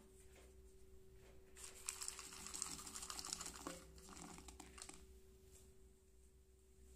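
Chopped milk chocolate pieces tipped out of a small bowl into a glass bowl of brownie batter, a quick run of small clicks and patters for about three seconds. A faint steady hum runs underneath.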